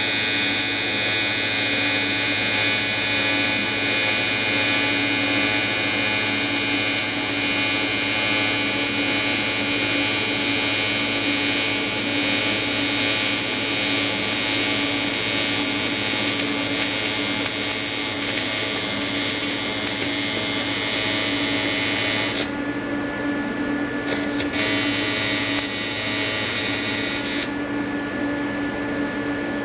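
AC TIG welding arc on an aluminium intercooler, from an Everlast 325EXT on square wave at about 100–150 Hz: a steady, harsh electric buzz. It breaks off about two-thirds of the way through, restarts briefly and stops again near the end, leaving a lower hum.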